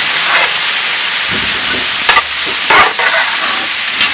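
Pieces of meat frying in a large metal cooking pot as they are stirred: a steady sizzling hiss, with a few scrapes and knocks against the pot about two to three seconds in.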